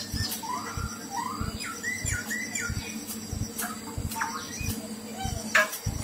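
Caged black-throated laughingthrush (khướu bạc má) giving a string of short, soft whistled notes, several sliding down in pitch, with a few sharp clicks near the end. Soft low thumps repeat underneath.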